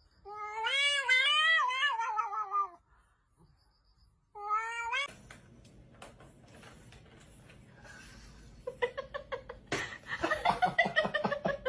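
A cat's long, wavering meow lasting about two and a half seconds, then a short rising meow a couple of seconds later. A fast run of clicks follows near the end.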